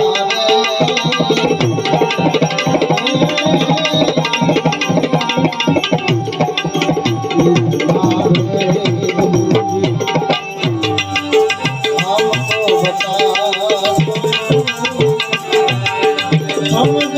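Tabla playing a steady, busy rhythm under sustained melodic accompaniment: an instrumental interlude of a Gujarati devotional bhajan, played loud.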